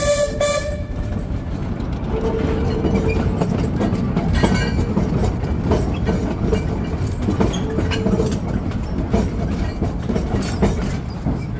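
Small steam locomotive running along narrow-gauge track. Its steam whistle cuts off just under a second in, leaving the steady rumble of the engine and irregular clicks of the wheels over the rail joints.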